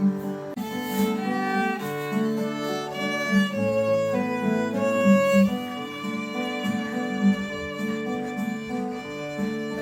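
Instrumental background music, a melody with violin over plucked strings.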